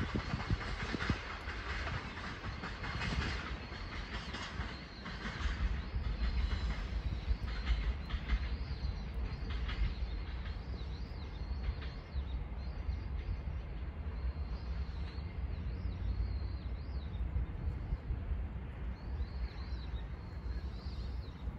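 A passing train dying away into the distance, its wheels clicking over the rail joints, fading out over the first ten seconds or so. Small birds then chirp over a steady low rumble.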